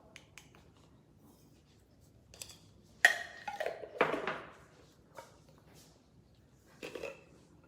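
A sharp clink of a kitchen utensil about three seconds in, followed by about a second of scraping and clattering, and a shorter scrape near the end: measuring salt out with a teaspoon into a bowl.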